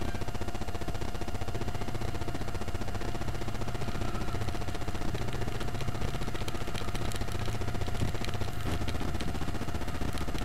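Motorcycle engine running steadily at low road speed, heard through a camera mounted on the bike, a rapid even pulsing with a constant hum over it. The recording is of poor quality.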